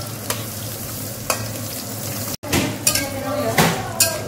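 Whole shallots, garlic cloves and chillies frying in hot oil in a metal wok, sizzling steadily while a metal spatula scrapes and knocks against the wok several times as they are stirred. The sound cuts out for an instant about two and a half seconds in.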